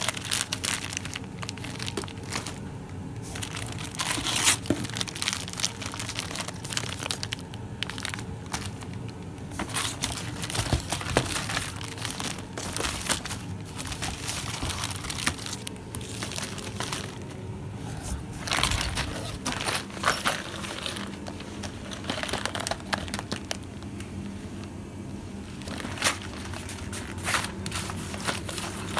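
Plastic wrapping of firework packs crinkling and rustling as the packs are handled and shifted about in a cardboard box, in uneven spells with short pauses.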